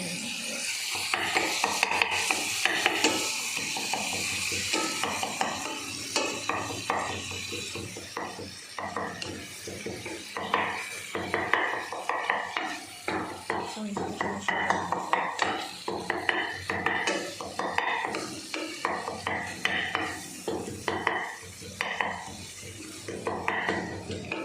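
Spoon stirring and scraping a tomato and spice sauce in a pan. The sauce sizzles steadily for the first several seconds, then the utensil knocks and scrapes irregularly against the pan.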